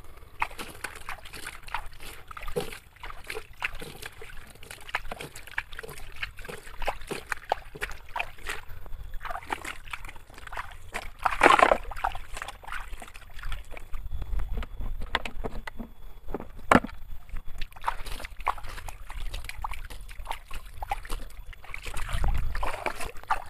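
Water sloshing and splashing as a toy sand dump truck is washed, with many irregular small splashes and knocks and a louder splash about halfway through.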